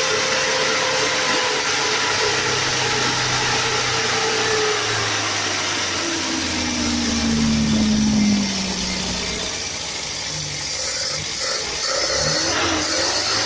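Mitsubishi Colt T120 engine running, its pitch falling slowly over about nine seconds as the revs drop, then carrying on at a lower speed.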